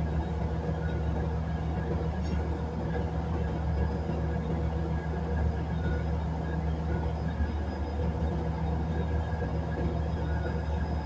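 Batara Kresna railbus running along the street, heard from inside the car: the diesel engine's steady low hum over the rumble of the running gear. The hum holds steady, shifting slightly in pitch about seven seconds in.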